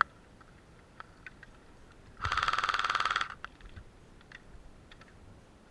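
An airsoft electric gun firing one full-auto burst of about a second, a rapid even rattle of shots. Scattered light clicks and ticks are heard around it.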